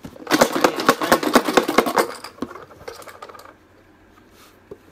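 A raffle box being shaken hard, the draw tickets inside rattling quickly against its sides for about two seconds before dying away.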